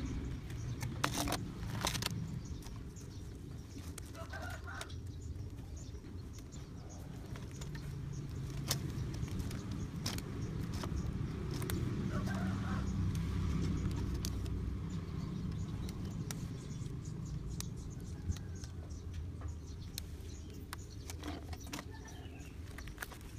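Chickens clucking now and then over a low steady rumble, with scattered sharp clicks and taps from PVC pipe and rubber strips being handled.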